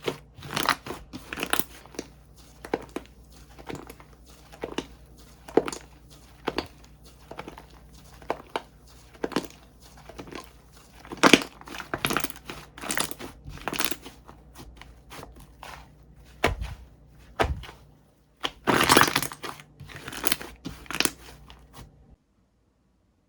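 Bubble cream slime being squished and pressed, giving irregular crackling pops with a few louder clusters. The sound cuts off suddenly near the end.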